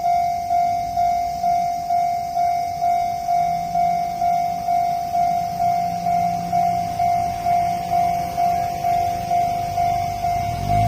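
Japanese railway level-crossing warning bell ringing, about two strikes a second, each one dying away: the signal that a train is approaching. A faint low hum joins about a third of the way in.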